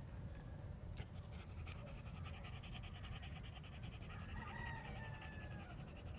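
Dogs panting hard after exertion, a fast, even run of breathy pants, with a thin wavering whine about four seconds in and a steady low rumble underneath.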